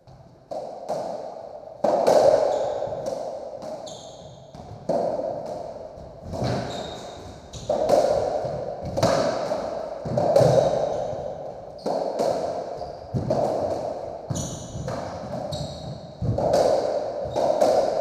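Racketball rally on a squash court: the ball hit by racquets and slapping off the walls and wooden floor about once a second, each hit ringing around the enclosed court, with short squeaks of shoes on the floor.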